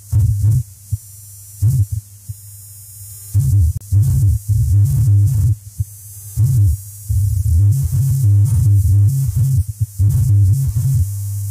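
Experimental electronic music from a cassette tape: a loud, low bass tone that cuts in and out in irregular stuttering pulses, with thin high tones above. The bass drops back for a couple of seconds about a second in, then returns.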